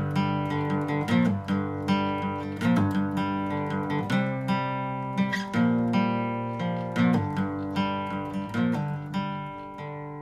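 Background music: an acoustic guitar strumming chords, the last chord left ringing and fading near the end.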